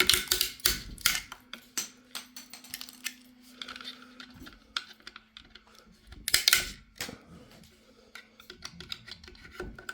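3D-printed plastic support material snapping and crackling as it is pried and broken off the print by hand: irregular sharp clicks and cracks, with louder bursts of breaking at the start and about six and a half seconds in.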